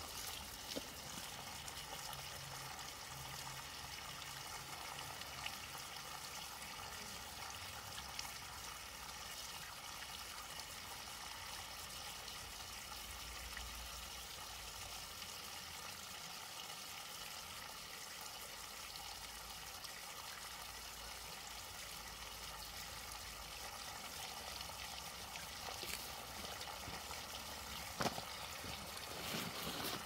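Spring water running steadily from an open pipe fitting, a thin stream splashing onto rocks. A sharp click about two seconds before the end.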